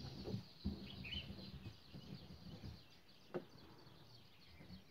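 Faint scratching and soft ticks of a pen writing on paper, with a short high chirp about a second in and a sharper tick a little past the middle.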